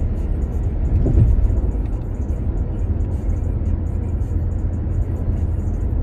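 Car driving at highway speed, heard from inside the cabin: a steady low rumble of tyres and engine, swelling briefly about a second in.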